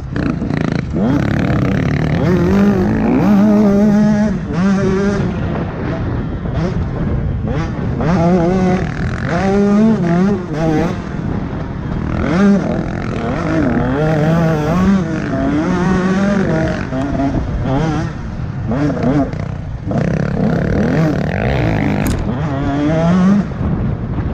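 Motocross bike engine heard from on board, revving up and down over and over as the rider accelerates, shifts and backs off around the dirt track.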